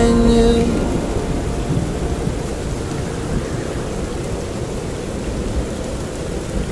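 Steady rain with a low rumble running under it, a rain-and-wind sound bed. The last held notes of the pop song fade out under the rain within the first second.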